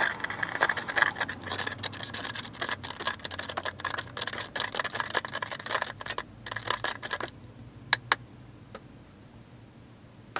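A metal screwdriver stirring salt into a liquid electrolyte in a plastic container: rapid clicking and scraping of the shaft against the container walls. It stops about seven seconds in, followed by a few single clicks.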